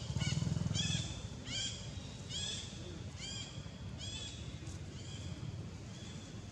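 A high chirping call repeated about once a second, each call arching and dipping in pitch, fading in strength toward the end. A low rumble sits beneath it in the first second.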